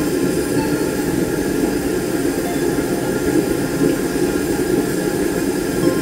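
Gas forge burner running with a steady, even rushing rumble as a knife blank heats in the flame for normalizing.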